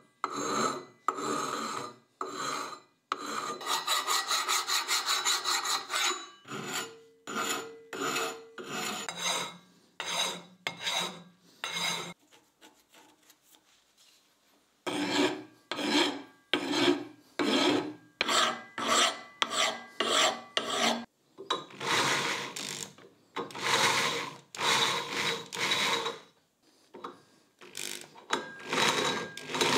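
A hand file rasping in repeated back-and-forth strokes, somewhat under two a second, on a steel pipe vise part. The strokes break off for a few seconds in the middle and then start again.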